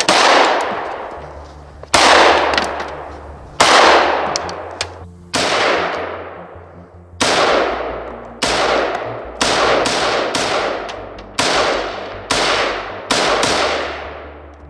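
Gunshots from a handgun and a black semi-automatic rifle: about a dozen single shots, each with a long echoing tail. They come every second or two at first, then faster, about two a second, in the second half.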